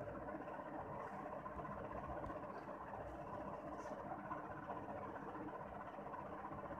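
Faint, steady background hum and hiss with no distinct event.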